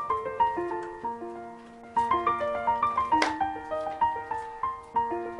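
Background music: a light keyboard melody of quick single notes, with a short swish about three seconds in.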